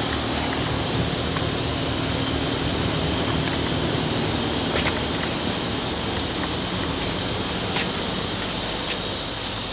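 Loud, steady chorus of tropical forest insects: a continuous high-pitched hiss that fills the jungle, with a couple of faint clicks.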